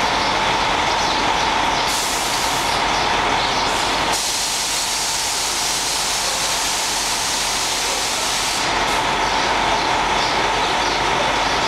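Loud, steady hiss from a train standing at the platform, with a faint steady tone under it. The hiss grows brighter about four seconds in and turns duller again near nine seconds.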